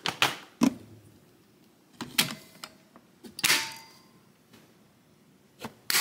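Hard plastic parts of a Shark Apex upright vacuum being handled and clicked back into place: five or so sharp separate clicks and knocks, with a longer scraping rattle about three and a half seconds in.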